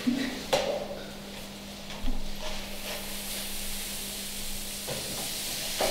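A few soft knocks and clicks over a steady low hum, as an apartment's wooden front door is handled.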